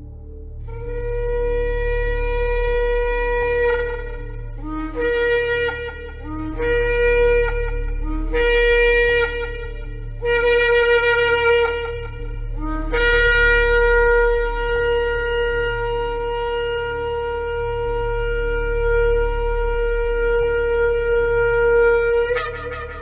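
Shofar blowing: a long blast, then four shorter blasts that each start low and jump up in pitch, then one very long blast of about nine seconds that ends with a sharp upward break. A low steady drone runs underneath.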